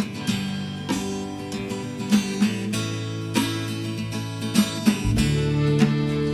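Background music: acoustic guitar strumming chords, with a deeper bass part coming in about five seconds in.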